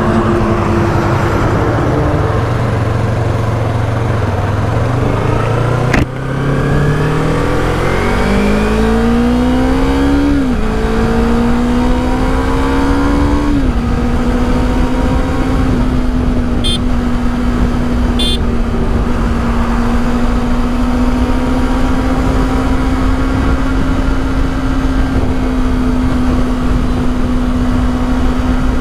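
Yamaha R3's 321 cc parallel-twin engine accelerating through the gears. Its pitch rises and drops back at two upshifts, then holds steady at constant speed. A sharp click comes about six seconds in.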